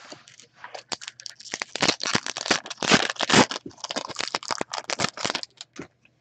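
A trading-card pack's foil wrapper being torn open and crinkled: a dense run of crackling, from about a second in until shortly before the end.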